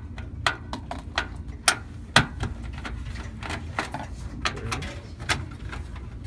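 A screwdriver working motherboard screws out of a steel computer case: a run of irregular sharp metal clicks and taps, the loudest about two seconds in.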